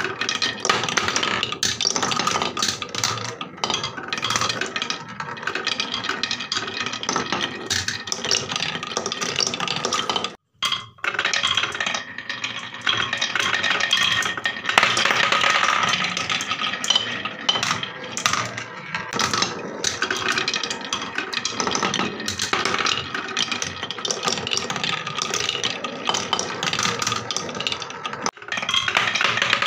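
Marbles rolling and clattering down a wavy-grooved HABA wooden marble-run track: a dense, continuous rattle of clicks as the balls knock against the wooden groove walls and each other. The sound cuts out briefly twice, about a third of the way in and near the end.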